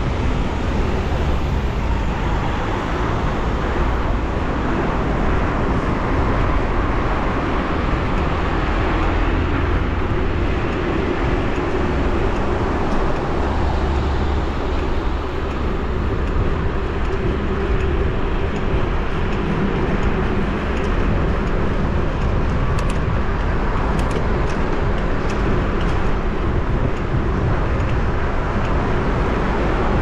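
Wind buffeting a GoPro 10's microphone on a moving bicycle, mixed with road and traffic noise: a steady, dense rush heaviest in the low end. A few faint clicks come about three quarters of the way through.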